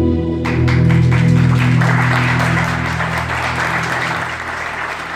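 Guitars and electric bass ringing out on a held closing chord that fades away, while audience applause starts about half a second in and swells until it takes over.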